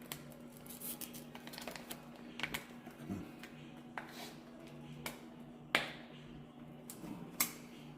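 Scattered light clicks and taps of a small packaged item from an art vending machine being handled and shaken, its contents rattling; two sharper knocks near the end, over a faint steady hum.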